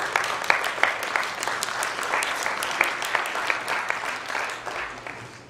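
An audience applauding, starting suddenly and dying away near the end.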